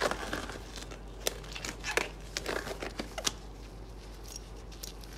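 Thin black disposable gloves being pulled onto the hands: irregular crinkling and small snaps of the stretched glove material, busiest in the first three seconds and then thinning out, over a steady low hum.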